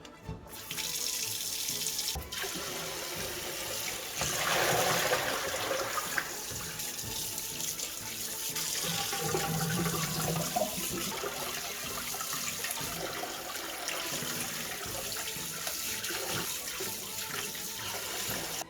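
Tap water running into a kitchen sink, with uneven splashing as something is rinsed under the stream; it gets louder about four seconds in.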